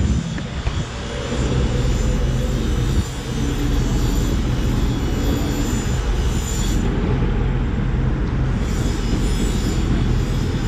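A steady, loud low rumble of noise, with a faint high hum over it.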